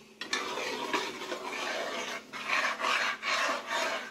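A spoon scraping round a cooking pot, stirring cassava flour and cornmeal into hot chicken broth for coxinha dough, in rhythmic strokes a little over two a second as the mixture begins to thicken.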